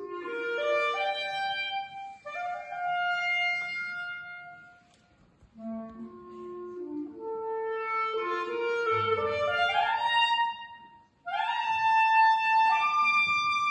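Solo clarinet playing a melody in phrases, with two short pauses between them and quick upward runs into held high notes near the end.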